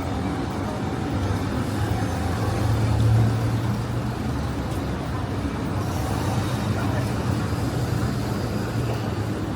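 City street traffic: a motor vehicle's low engine hum over general road noise, swelling to its loudest about three seconds in and then easing back.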